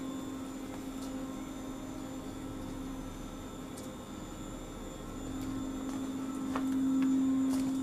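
Chairlift machinery humming steadily, a single low tone that grows louder about five seconds in. A couple of light knocks near the end as the bike is lifted onto the chair.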